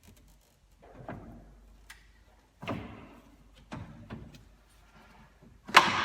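A new radiator being handled and fitted into a pickup's radiator support: a series of hard knocks and scraping clunks, about four, with a small tick between, the loudest near the end.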